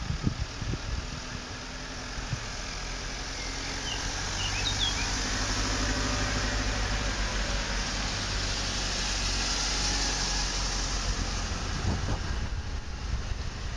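A motor vehicle's engine running steadily, a low hum that grows louder through the middle and fades again near the end. Wind buffets the microphone at the start and near the end, and a few short bird chirps come about four to five seconds in.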